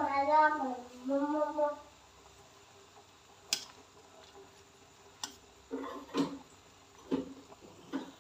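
Background music ends in the first two seconds. Then a metal ladle stirs an aluminium pot of boiling chicken, giving two sharp clicks and, near the end, three short ringing knocks.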